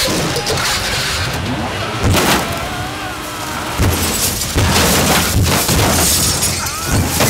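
A jeep tumbling down a slope in a film crash sequence: a series of heavy crashing impacts, about four big ones, with metal and breaking noises over a rumbling undertone.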